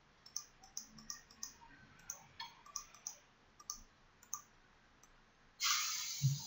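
Faint computer mouse clicks, irregular and about two or three a second, as menu items are clicked and windows dragged. Near the end comes a short hiss about a second long, then a low thump.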